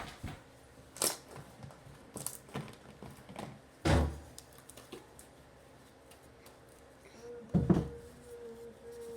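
Handling noise at a table: a few separate knocks and thumps of objects being picked up and set down, a sharp click about a second in and heavier thumps about four and seven and a half seconds in.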